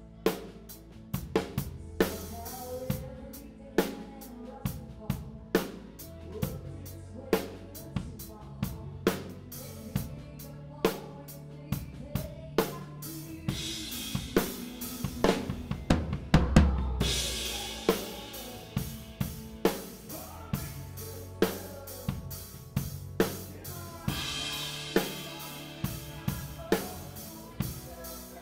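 A live drum kit plays a slow ballad groove of kick, snare and floor toms on a 1972 Ludwig maple kit, over the rest of the band. Cymbal wash swells up twice, about halfway through and again near the end, and a heavy low drum-and-crash hit lands just past the middle.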